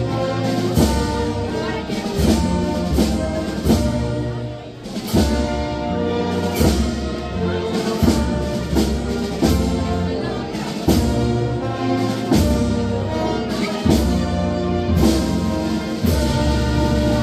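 Brass band playing, with drum strokes marking a steady beat.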